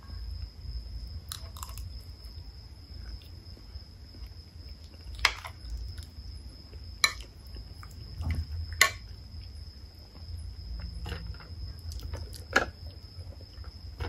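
A person chewing a mouthful of rice, peas and potatoes, with a few sharp clicks of a metal spoon scattered through.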